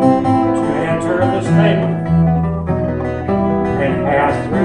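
Live acoustic folk band playing a lively traditional English country dance tune: bouzouki and other plucked strings under a recorder melody.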